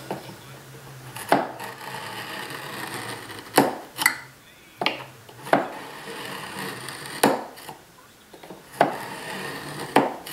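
Wooden-handled chisel scraping a layout line into plywood along a steel combination square, broken by about eight sharp clicks as the blade is set and reset.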